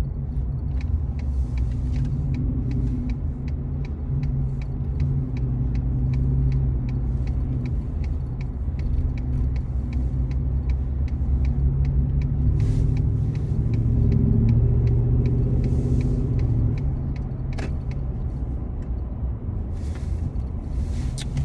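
Steady road and engine rumble inside a moving car's cabin, with the turn-signal indicator ticking evenly from about a second in until about halfway through. Later come a few short bursts of hiss.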